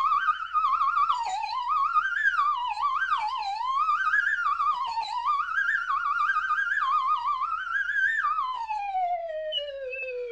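Slide whistle played in a frantic cartoon-style run: one whistling tone sliding up and down with a fast wobble, then a long falling glide near the end.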